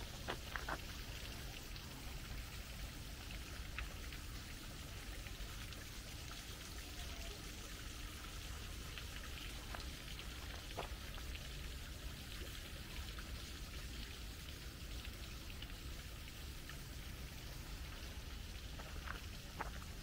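Steady rush and patter of water falling at a small park waterfall, an even splashing hiss that does not let up.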